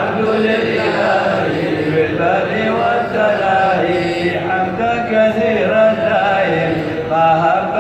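A man chanting Arabic devotional supplication in a long, drawn-out melodic voice into a handheld microphone, amplified through the hall's sound system.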